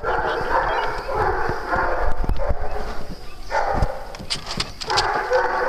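A group of dogs barking and yipping, with a brief lull about three seconds in and a few low thumps.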